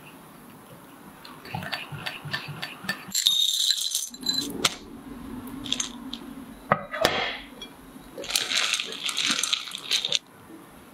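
Kitchen utensil sounds: a small utensil clinking and scraping against a ceramic bowl as matcha powder is stirred into cream, with a few sharp clinks. Near the end a wire whisk scrapes through cream cheese and white chocolate chips in a glass bowl for about two seconds.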